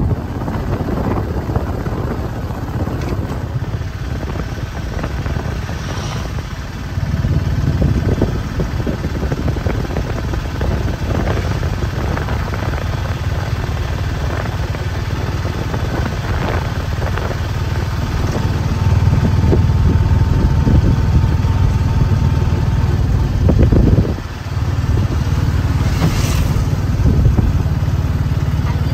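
A vehicle running steadily with a low rumble of engine and road noise, growing louder about a quarter of the way in and cutting out for a moment near the end.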